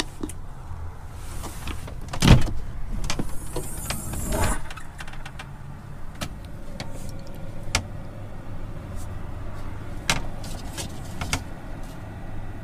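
Chinese diesel air heater just switched on: its blower fan runs with a low steady hum while it is still blowing cold air at start-up. Irregular clicks and knocks from handling the heater's ducting, the loudest about two seconds in.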